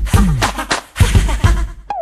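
Electronic hip hop-style music in an instrumental gap between sung lines: drum hits with short sliding bass notes, and a falling sweep near the end that leads into a steady electronic section.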